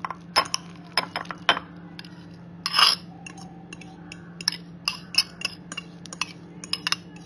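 Light clinks and taps of a utensil against a glass bowl as mashed boiled pumpkin is scraped out into a serving bowl, with one longer scrape about three seconds in, over a faint steady low hum.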